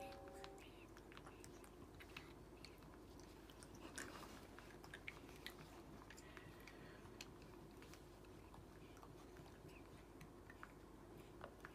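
Near silence with faint scattered clicks and mouth smacks from a baby monkey sucking on a lollipop.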